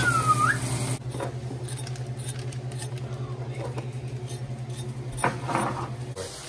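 Low, fast-pulsing electrical hum of an induction cooktop, which stops suddenly about six seconds in. A short high squeak glides up and down at the start, and there is a click with a brief squeak about five seconds in.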